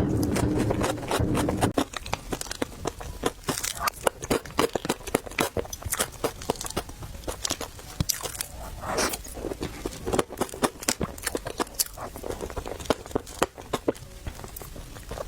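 Close-miked chewing and biting of crunchy food, a rapid run of sharp crackles and wet clicks. A low steady hum runs for the first two seconds, then stops.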